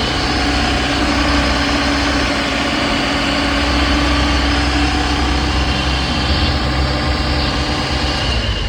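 Maruti Suzuki Eeco van's four-cylinder petrol engine idling steadily, just restarted and running again now that its burnt wiring has been replaced.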